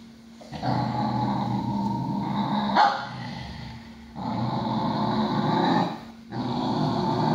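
Dog growling angrily at another dog in three long growls, with short pauses between them. The first growl ends in a sharp, bark-like snap.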